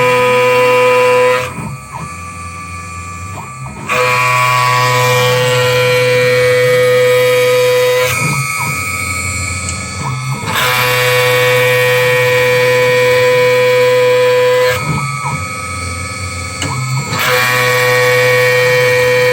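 DIY CNC router spindle at 7000 rpm trochoidal-milling a pocket: a loud, steady, high-pitched cutting whine over a low spindle hum. Three times the whine drops away for about two seconds, leaving the quieter hum. Faint gliding tones from the axis motors run underneath.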